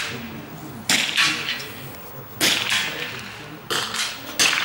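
Shots from .22 rimfire target rifles on a prone firing line: about five sharp cracks at uneven intervals, each followed by a short echo off the range.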